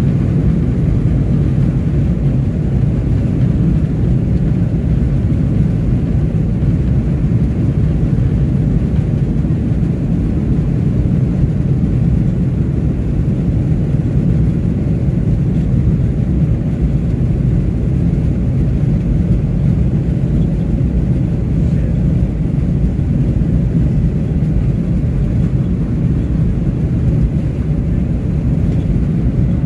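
Steady low rumble of airliner cabin noise, heard from a passenger seat inside the cabin.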